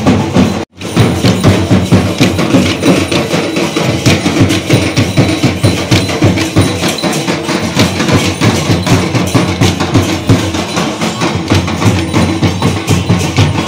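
Live percussion from a stick dance: a drum and cymbals beat a fast rhythm, and wooden sticks clack together. The sound drops out for an instant a little under a second in.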